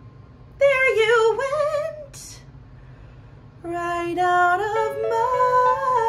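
A woman singing a musical-theatre song over a piano backing track: a short wavering phrase with vibrato about half a second in, a breath, then held sung notes over sustained piano chords from a little past halfway.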